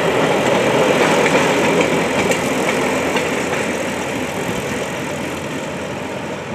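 Engine of a small motorized narrow-gauge rail trolley (draisine) running as it passes and moves away, loudest about a second or two in and then slowly fading.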